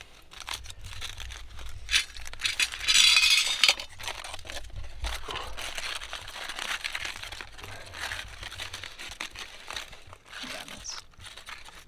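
Crinkling, rustling and light clinking as food and cookware are handled, with a louder crinkling burst about three seconds in.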